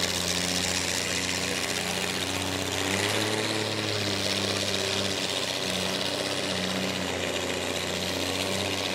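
Tractor engines running at low, steady speed while the tractors move the weight-transfer pulling sled, a steady low hum that shifts slightly in pitch now and then.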